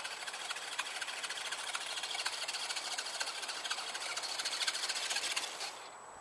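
Two RC scale crawler trucks, a Ford pickup and a Scout, driving over snow: the whir and clicking of their electric motors and geared drivetrains, with tires crunching the snow. It grows a little louder, then cuts off near the end as the trucks stop.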